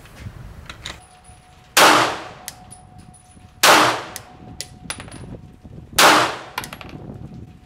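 Glock 19 9mm pistol firing three single shots, about two seconds apart, each trailing off in a short echo.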